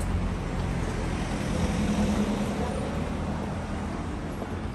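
A car driving past on the street, its engine and tyre noise swelling about two seconds in and then fading away.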